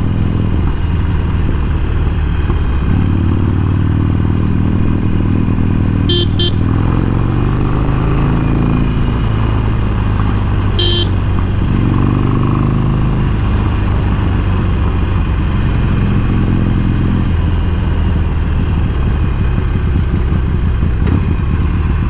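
Harley-Davidson Forty-Eight's air-cooled V-twin running through a Screaming Eagle slip-on exhaust at low road speed, its note rising a few times as the throttle is opened.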